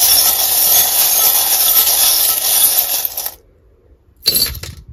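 A handful of small metal charms shaken together, a continuous rattle for about three seconds that stops abruptly, then a short second rattle near the end as they are cast out.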